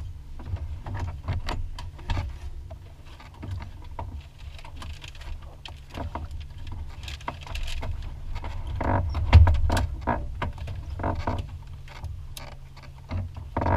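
Irregular knocks, clicks and rustling over a steady low rumble, with one louder thump about two-thirds of the way through: handling noise in the cabin of a light aircraft with its engine shut down.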